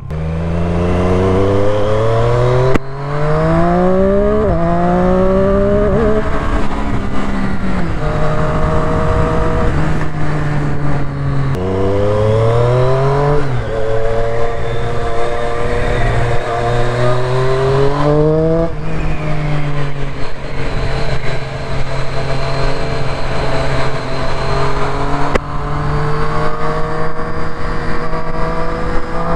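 Triumph Street Triple RS's 765 cc inline-three running through a brand-new Arrow exhaust, accelerating up through the gears. The engine note climbs, drops sharply at each of several upshifts, and holds steady at cruising revs between pulls.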